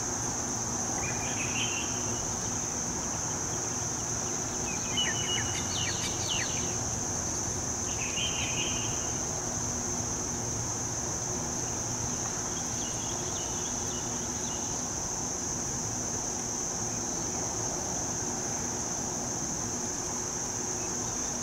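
Steady high-pitched insect chorus, with a few short bird chirps over a low background hum.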